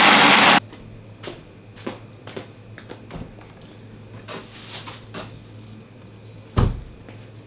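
Electric blender grinding a spice paste of shallots, garlic, chilli, candlenuts and oil, cut off abruptly about half a second in. Then quiet handling noises at a chest freezer: small knocks, a brief plastic-bag rustle, and a single heavy thump near the end, over a low steady hum.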